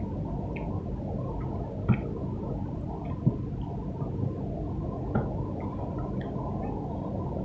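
Eating sounds of someone chewing and picking up rice by hand from a plate: soft wet mouth sounds and a few sharp clicks one to two seconds apart, over a steady low background hiss.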